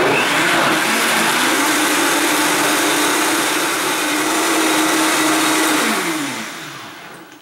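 Countertop blender motor running at high speed, blending fruit, avocado and almond milk into a thick puree. Its pitch steps up slightly in the first second or two and holds steady, then falls and winds down near the end as the blender is switched off.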